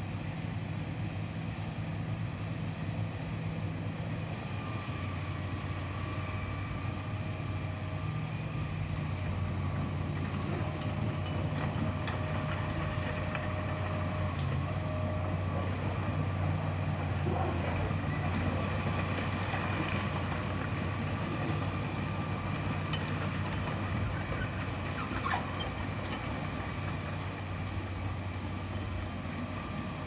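Fiat Kobelco EX355 crawler excavator's diesel engine running steadily as it works, the drone swelling slightly past the middle. A few faint clanks come in the second half.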